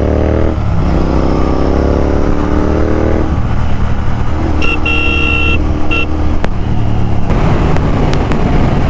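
Royal Enfield Continental GT 650's 648 cc parallel-twin engine accelerating hard. Its pitch climbs, breaks for a gear change about half a second in, then climbs again for about three seconds. A vehicle horn honks for about a second around the middle, with a short second toot, and wind noise rushes over the microphone near the end at high speed.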